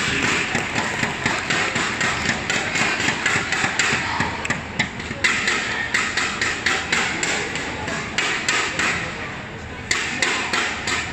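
Arena crowd clapping after a rally ends, a dense irregular clatter of sharp claps that breaks off briefly about halfway and again shortly before the end, then picks up.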